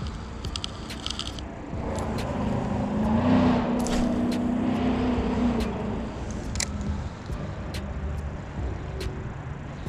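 A motor vehicle passing by, its engine and tyre noise swelling to a peak about three and a half seconds in and then fading, over a steady low rumble.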